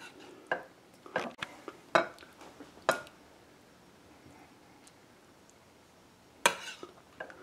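Metal serving spoon clinking and scraping against the stoneware crock pot insert and a ceramic plate as meatballs in sauce are spooned out: several sharp clinks in the first three seconds, a pause, then a loud clink about six and a half seconds in and a lighter one near the end.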